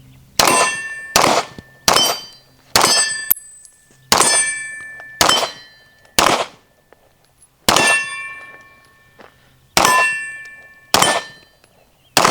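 A string of about a dozen gunshots on steel targets. Each hit rings the steel plate with a clear metallic ding that decays over a fraction of a second. The shots come unevenly, with a longer pause of about a second and a half a little past the middle.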